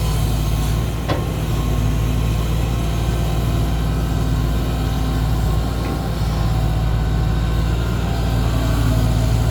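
Heavy diesel engine running steadily at a low, even pitch, with a faint click about a second in.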